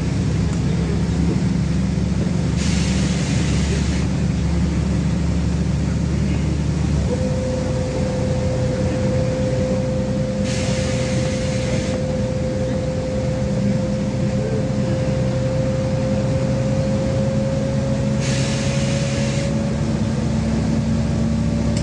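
Interior of a LiAZ-5292.21 diesel city bus under way: steady engine and road hum. About seven seconds in, a thin whine starts and slowly rises in pitch. Three short bursts of hiss come about eight seconds apart.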